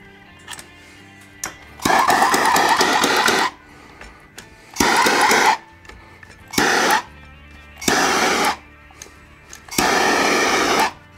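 Heat gun blowing in five short blasts, each half a second to a second and a half long, warming vinyl wrap film so it conforms to the rifle receiver. Soft background music underneath.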